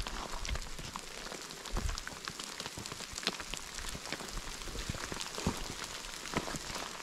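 Rain falling during a thunderstorm: a steady hiss with many scattered sharp ticks of drops landing close by.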